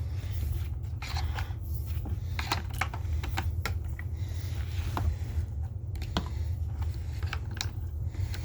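Irregular light clicks and knocks, several a second at times, over a steady low rumble.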